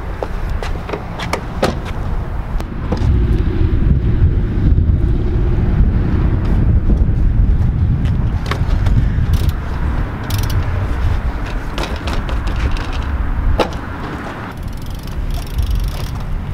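Scattered clicks and knocks from a car door and things being handled at the car, over a steady low outdoor rumble that swells about three seconds in and eases near the end.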